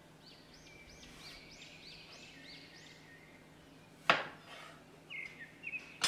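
A kitchen knife cuts through strawberries onto a wooden cutting board, giving one sharp, loud knock about four seconds in and another at the end, with a few lighter ticks between. Before that, a bird chirps in a quick series of high, repeated notes.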